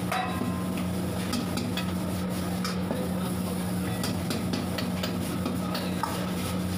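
Noodles being stir-fried in a wok over a gas flame: a steel ladle and spatula scrape and clank against the pan at irregular intervals over a steady low hum, with the food sizzling.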